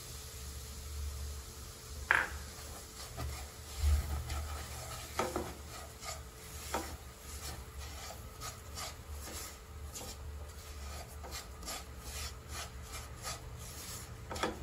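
Silicone spatula stirring and scraping semolina as it roasts in oil in a nonstick kadai: a dry rubbing scrape, with a few sharper knocks against the pan in the first half, then quicker repeated strokes in the second half.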